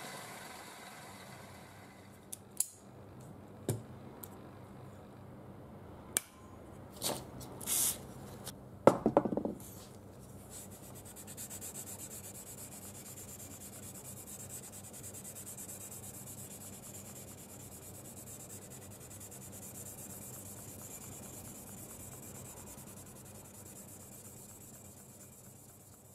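A bench grinder motor winding down, then several sharp metal knocks and clatters, then a hand file scraping steadily back and forth across a steel knife blade to set the edge bevel, the file held at a fixed angle in a filing guide jig.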